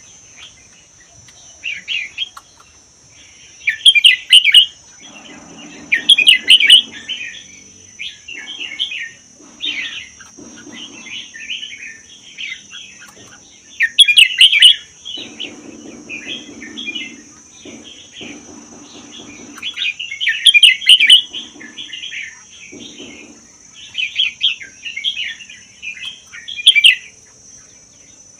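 Red-whiskered bulbul singing: short, loud, warbling phrases repeated every second or so. A steady high-pitched whine runs underneath.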